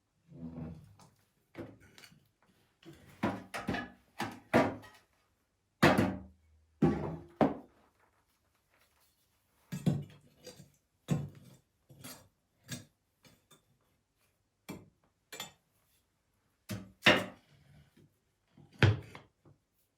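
Irregular knocks, thuds and clatters of objects being handled and set down, some of them wooden. The sharpest come about six seconds in and twice near the end.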